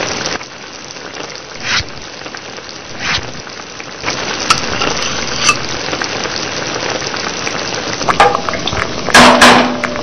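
Steady sizzling of sauce frying in a pan, with a few brief swishes and a louder burst of noise near the end.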